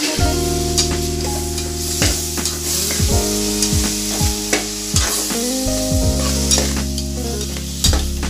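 Steel spatula scraping and clinking against the pressure cooker as onion-vegetable masala with ginger-garlic paste is stirred while it fries and sizzles. Steady held tones run underneath, changing pitch every few seconds.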